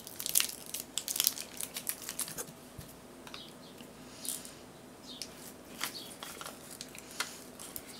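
Light crinkling and small plastic clicks as a thin clear plastic candy mold is handled and soft candy dough is pressed into it. The clicks come thick for the first couple of seconds, then thin out to scattered ticks.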